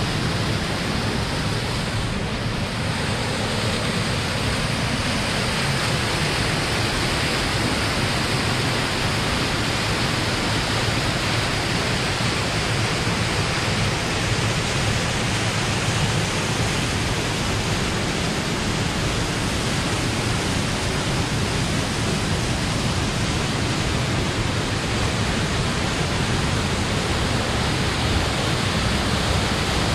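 Mountain creek cascading through a narrow rock gorge, its whitewater making a steady rushing noise.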